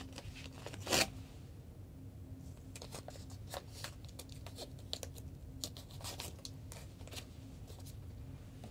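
Freezer tape being handled: a strip pulled and torn with one loud tearing sound about a second in, then a run of short crackles and clicks as the tape is wrapped and pressed around a phone on a plastic ruler.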